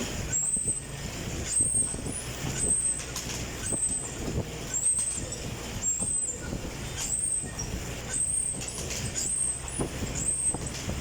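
Stationary exercise bike being pedalled at a steady pace: a continuous whirring hum with a high squeak that comes round about once a second.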